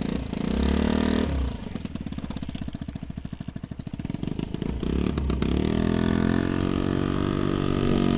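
2003 Honda Metropolitan scooter's small four-stroke engine revving briefly, then dropping back to a low, pulsing putter. From about five seconds in it climbs again and settles into a steady, higher note as the scooter pulls away at part throttle, where it runs happily.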